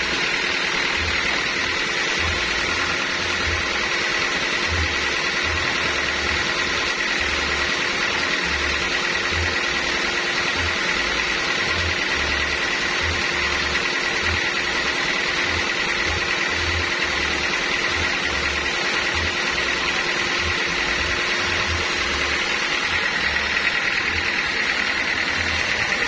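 Band sawmill running steadily: continuous machine noise with a constant high-pitched tone from the running saw.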